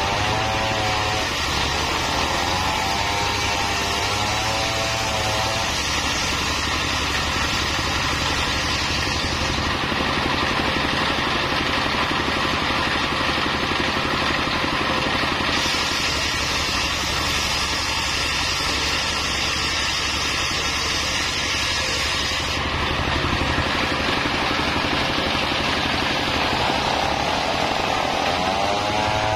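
Single-cylinder stationary diesel engine running steadily, driving a circular saw that rips a mahogany plank lengthwise, with a dense buzz of blade and wood throughout. A wavering whine rises and falls in the first five seconds and again near the end as the blade cuts.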